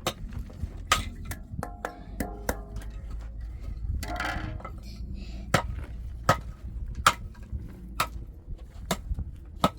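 A run of sharp knocks and clacks, quick and irregular at first, then steadier at about one a second in the second half, over a low steady rumble.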